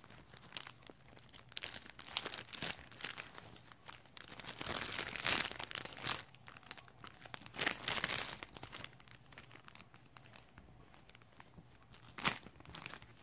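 Clear plastic packaging bags crinkling and rustling as they are squeezed and handled, in irregular bursts, with a sharp click near the end.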